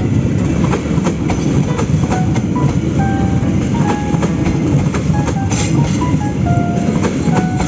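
Train running along rails: a steady rumble with rapid clicks of wheels over the track. Short, scattered high notes sound over it.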